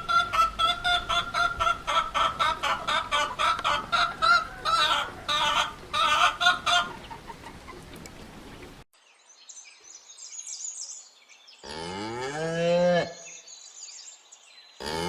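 Chickens clucking in quick repeated notes for about nine seconds, then a sudden cut to a quieter stretch with faint bird chirps and one drawn-out cow moo near the end.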